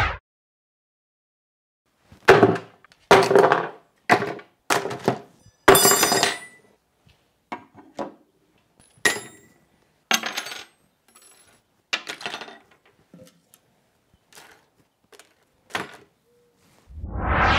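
Bicycle accessories and tools being set down and shuffled on a wooden table: a string of short knocks, thunks and metallic clinks from wrenches, a pump, a charger and bagged small parts. Near the end a swelling whoosh comes in.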